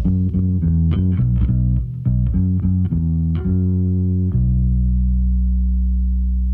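Closing bars of a rock song: a bass guitar plays a quick run of short notes, then lands on a low note that is held and slowly fades out.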